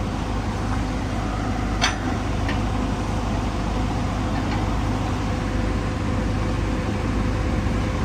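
Heavy diesel machinery engine running steadily, with one sharp metallic clank about two seconds in.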